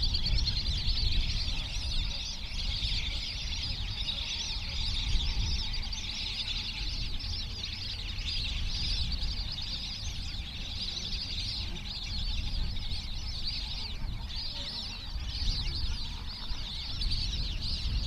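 A large flock of whistling ducks calling together: a dense, unbroken chorus of many overlapping high twittering whistles, over a low rumble.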